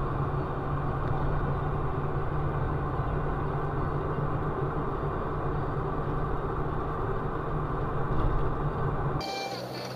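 Steady engine drone and road noise of a vehicle driving at speed on a highway, picked up inside the cab by a dashcam microphone. About nine seconds in it cuts off abruptly and music starts.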